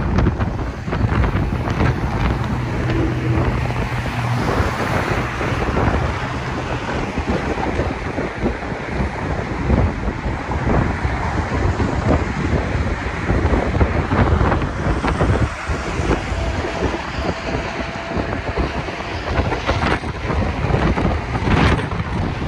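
Wind buffeting the microphone on the open top deck of a moving double-decker tour bus, over the bus's engine and road noise, with a low engine hum in the first few seconds.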